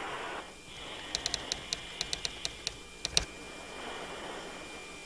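Typewriter-style keystroke sound effect: about a dozen sharp ticks at a few per second between one and three seconds in, ending on a heavier click, over a faint steady hiss.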